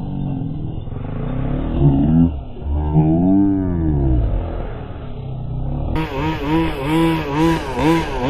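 Small two-stroke gasoline engine of a 1/5-scale RC buggy revving up and down in long swells, then, after an abrupt change about six seconds in, blipping the throttle in quick repeated revs.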